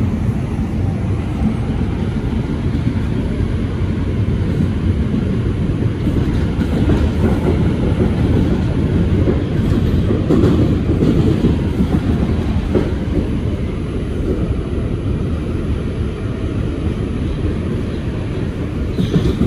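Bombardier R142 subway car running on the track, heard from inside the car: a steady low rumble of wheels on rail with a light clickety-clack.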